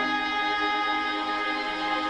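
Orchestral music with bowed strings, holding long sustained chords.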